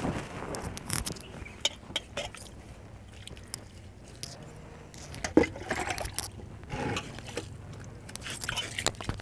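Hands scraping and working loose soil in a plastic tub, with scattered clicks and crackles and one sharp knock about halfway through, and water sloshing in a steel bowl.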